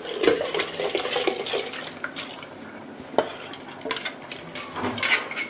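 Metal spoon scraping and clinking against a metal pot as soaked arhar dal is scooped out into a pressure cooker. The clinks are dense through the first two seconds, with a single sharp clink about three seconds in and a few more near the end.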